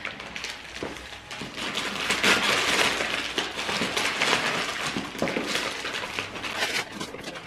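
Christmas wrapping paper being torn and crumpled off a gift box by hand, a dense crackling rustle that is loudest about two to three seconds in.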